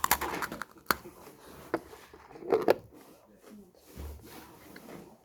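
Crisp crunching bites into freeze-dried astronaut ice cream, a few sharp crackles and short clusters of them with quiet chewing between.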